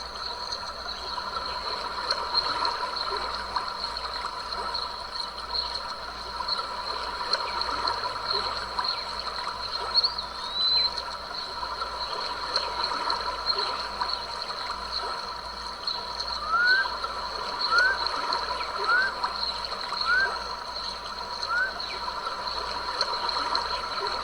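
Stream babbling and trickling steadily. In the second half a bird gives five short rising calls about a second apart.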